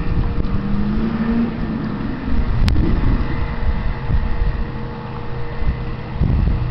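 An engine running with a low rumble and steady hum, one tone rising in pitch over the first second and a half, and a single sharp click near the middle.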